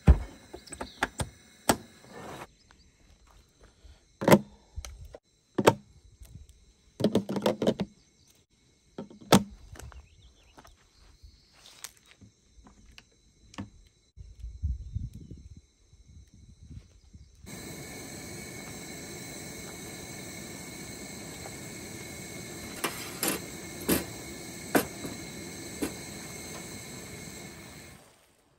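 A series of sharp knocks and clatters, then a steady hiss starting a little past the middle. The hiss comes from a Coleman propane camp stove heating a pot of water to a steaming boil, with a few clicks over it. The hiss stops shortly before the end.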